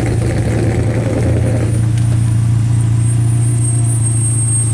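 A car engine idling steadily with a deep, even hum. Some rougher mechanical noise on top of it fades out a little under two seconds in.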